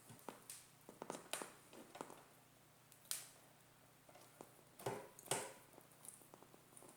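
Faint, scattered clicks, taps and short rustles of hands working on a speaker's wiring, with the sharpest ones about three seconds in and near five seconds.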